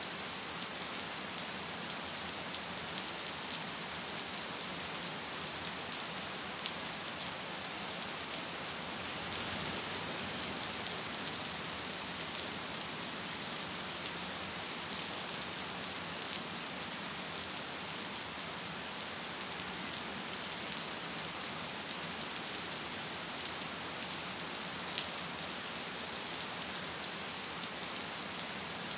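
Steady, gentle rain: an even hiss with the small ticks of individual drops through it.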